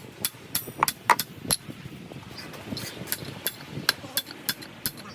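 Metal tools knocking on metal: a string of sharp, uneven taps and strikes, a few of them ringing briefly.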